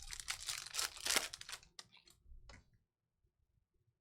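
A trading-card pack wrapper being torn and crinkled, a dense rustling crackle for about the first two seconds, then a few light clicks before it goes quiet.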